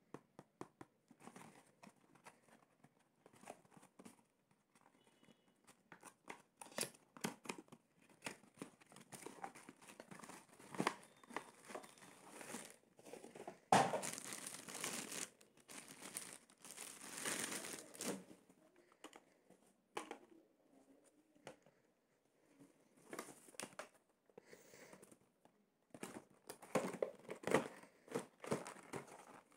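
Toy packaging being handled: a clear plastic bag crinkles and cardboard boxes rustle and click. The crinkling is loudest about halfway through.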